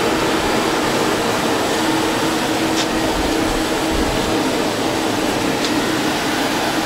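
Hurricane circulation fans running in a mushroom grow tent: a steady rush of moving air with a constant low motor hum.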